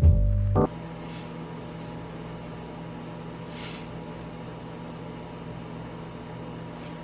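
Microwave oven running with a steady hum. Background music cuts off under a second in.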